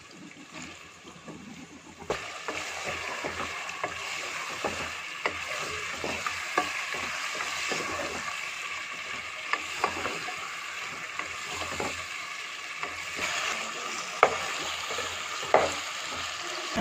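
Chicken pieces with ginger-garlic paste frying in a pot, sizzling steadily from about two seconds in, while a wooden spoon stirs them and knocks against the pot now and then.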